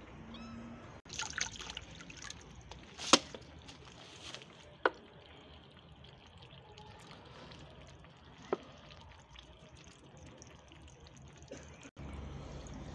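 Several kittens lapping water from plastic tubs: faint wet lapping broken by a few sharp clicks.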